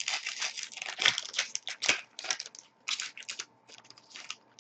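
Foil trading-card pack wrapper crinkling as it is torn open and handled: a dense run of quick crackles that breaks into shorter clusters for the last couple of seconds.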